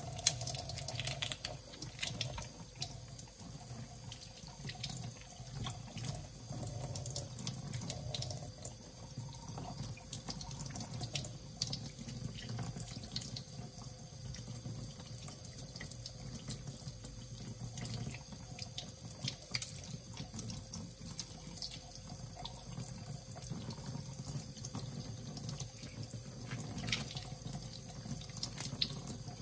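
Water running from a kitchen tap into a sink, with frequent small clicks and knocks of things being handled under it.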